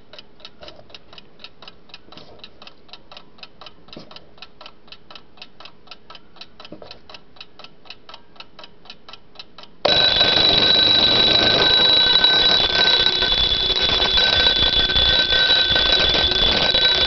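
Antique Ansonia chrome wind-up alarm clock ticking at about four ticks a second; about ten seconds in, its mechanical alarm goes off suddenly, the hammer ringing the bell in a loud, continuous clatter.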